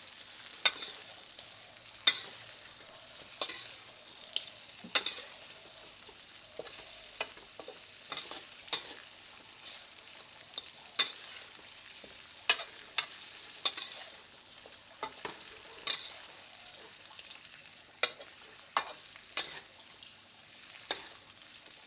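Snapping turtle meat stir-frying with chili and ginger in hot oil: a steady sizzle broken by irregular sharp clinks of a spatula scraping and striking the pan, about one every second or two.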